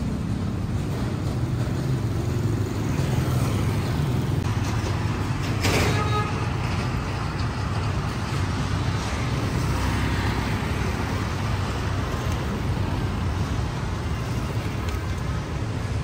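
Road traffic: a steady low rumble of passing cars and trucks, with a brief sharp hiss about six seconds in.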